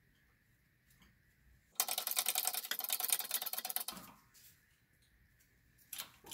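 A loud burst of rapid, dense clicking and rattling from bench work on the bushing-press setup, lasting about two seconds, with a couple of short clicks near the end.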